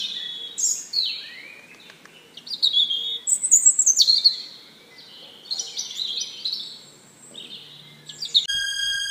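Birds chirping: a run of short, varied whistled and trilled calls, some sweeping down in pitch. Just before the end, a steady electronic music tone comes in.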